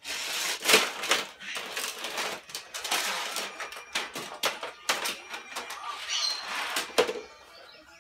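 Small plastic VTech Toet Toet toy cars pushed along and knocked against a plastic toy track, a busy rattling clatter with many sharp clicks. It dies down about seven seconds in.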